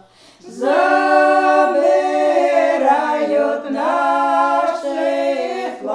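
A small group of elderly women singing a traditional Podlasie village song a cappella, several voices together on long drawn-out notes that change pitch in steps. After a short breath pause at the start, the singing comes back in and holds to near the end.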